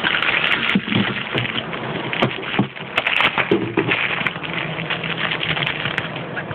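Clear plastic packaging crinkling and crackling as hands handle and unwrap it, a steady mess of small crackles.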